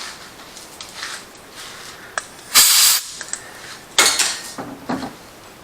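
Short hissing spray bursts: a faint one about a second in, a loud half-second one about two and a half seconds in, and another about four seconds in.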